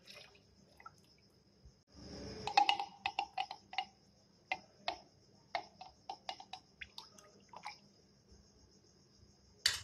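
A short splash about two seconds in as tamarind pulp goes into spiced green mint-and-coriander water, then a spoon stirring it, clinking irregularly against the container about a dozen times.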